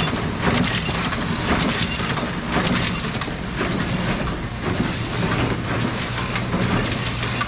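Automatic seed packing machine running: a steady mechanical hum with a regular clack of its moving linkages about once a second.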